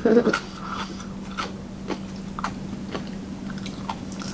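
Close-up mouth sounds of eating: irregular crisp crunches and smacks of chewing food, over a steady low hum.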